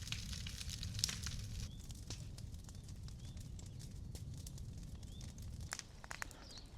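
Large bonfire of dry branches burning, crackling and popping, the crackles thickest in the first couple of seconds. Small birds chirp faintly from about two seconds in.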